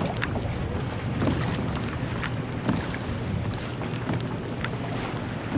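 A pedal kayak moving on water: steady wind rumble on the microphone with water lapping and scattered light clicks and splashes against the hull.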